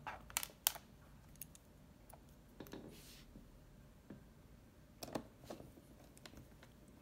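Faint clicks and taps of a small screwdriver and small metal parts against a laptop's plastic bottom case, during screw work: a few sharp clicks near the start, a soft scrape around the middle, and a couple more clicks about five seconds in.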